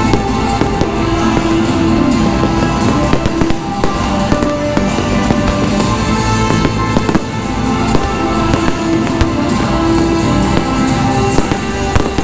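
Aerial fireworks bursting overhead, with repeated sharp bangs and crackling, over continuous music.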